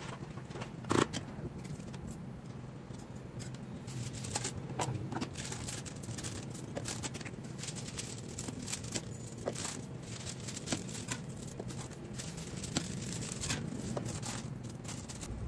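Paper sheets rustling and crinkling as they are handled and laid out, with scattered light clicks of kitchen utensils. There is a sharp knock about a second in, a spoon against the pot.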